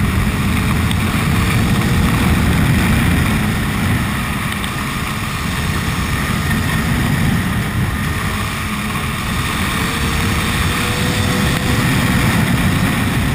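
Heavy wind rush on the camera's microphone over a Honda CBR1000RR's inline-four engine riding at speed, with a faint engine note rising slowly twice as the bike accelerates.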